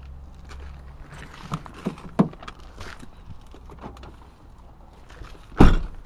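Handling knocks on the body of a Ford F-150 crew cab: a few light knocks, then a loud door clunk with a second knock right after it near the end, as a door of the truck is worked.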